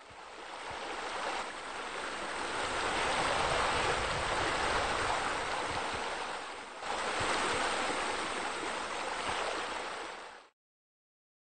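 Steady rushing, splashing water that fades in at the start, dips briefly about seven seconds in and cuts off abruptly about ten and a half seconds in.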